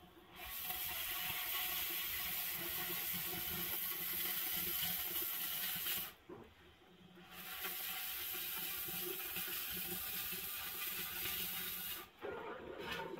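Oxy-fuel cutting torch hissing as its cutting jet burns through a steel pipe wall. The hiss runs steadily for about six seconds, cuts out for about a second, then runs again for about five seconds.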